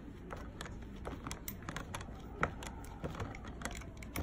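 Hand screwdriver turning a screw into a plastic rocker frame: a run of small, irregular clicks, one a little louder about halfway through.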